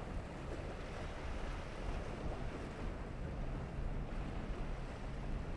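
Twin Mercury 450R supercharged V8 outboards on a center-console boat running past, mixed with water rushing off the hull and wind on the microphone. A steady low engine hum comes up about halfway through.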